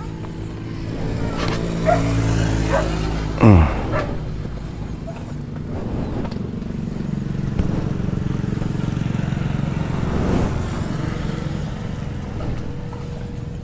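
A motorcycle engine running steadily, with a dog barking a few times in the first few seconds and a sharp falling sound about three and a half seconds in.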